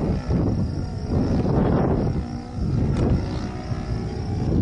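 Saito 1.25 single-cylinder four-stroke glow engine of an RC Midwest Citabria running in flight high overhead, with a steady drone heard at a distance. Wind rumbles on the microphone underneath.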